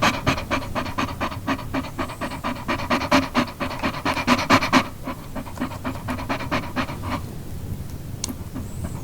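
A dog panting rapidly, several quick in-and-out breaths a second, loudest over the first five seconds, then weakening and stopping about seven seconds in.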